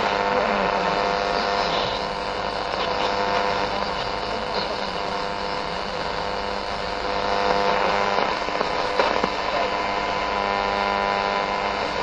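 AM radio receiver tuned between stations on the medium-wave band near 940 kHz: steady static hiss with a hum and several steady whistle tones, and a few crackles about eight to nine seconds in.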